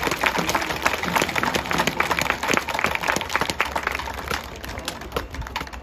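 A crowd of football supporters clapping and applauding the team after the match. The clapping thins out after about four and a half seconds.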